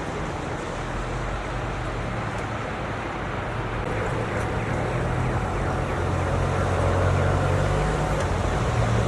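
Steady snowstorm ambience: continuous wind noise with a low rumble underneath, growing a little louder about two-thirds of the way in.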